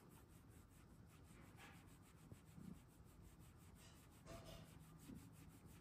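Near silence, with faint soft rubbing of a hand stroking a cat's fur against a blanket.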